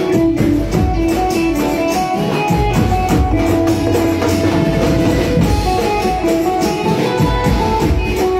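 Live band playing garba music: guitar and drum kit with a melody over a steady beat.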